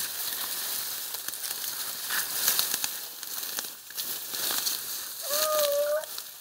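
Tall grass and sedge rustling and crackling against someone pushing through it on foot, dry stems snapping. About five seconds in, one short, slightly rising cry cuts through, likely from one of the hunting dogs.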